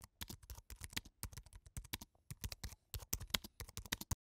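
Keyboard typing sound effect: rapid, irregular keystroke clicks, about ten a second with a couple of brief pauses, as text is typed out on screen.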